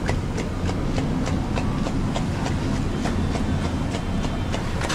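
Evenly spaced clacking strikes, about three a second, over a steady low hum.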